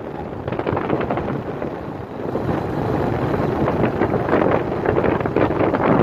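A vehicle driving along a dirt road, its running noise mixed with wind buffeting the microphone. Slightly quieter for the first couple of seconds, then steady.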